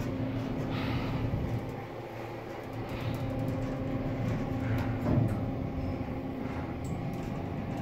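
Steady mechanical hum inside the cab of a Kone traction elevator, with a low hum and a faint held tone, and a brief louder knock about five seconds in.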